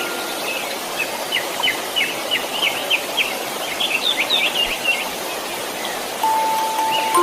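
Steady white noise with a bird twittering a quick series of short chirps from about one to four and a half seconds in. A sustained chime-like music note comes in near the end.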